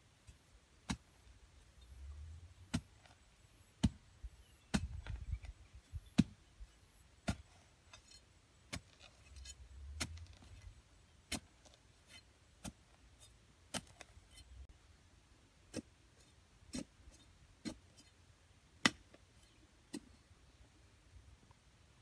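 A hand tool jabbed into hard dry soil to dig a hole: sharp single knocks at irregular intervals of about a second, with a few short low rumbles.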